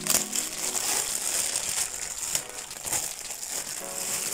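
Glossy plastic gift wrapping crinkling steadily as the package is handled.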